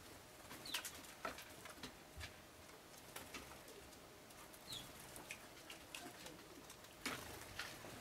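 Faint, scattered short chirps of Eurasian tree sparrows, a handful of sharp notes spread over several seconds, a couple of them dropping quickly in pitch.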